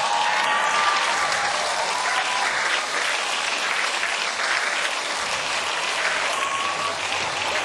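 Live audience applauding steadily, with a few voices rising above the clapping.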